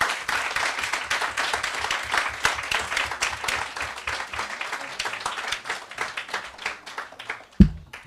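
An audience applauding: many people clapping, thinning out and fading near the end, followed by a single low thump.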